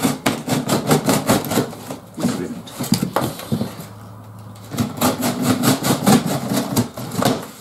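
Large cardboard shipping box being pulled open and shifted: quick runs of cardboard scraping, rustling and knocking, with a short lull about four seconds in.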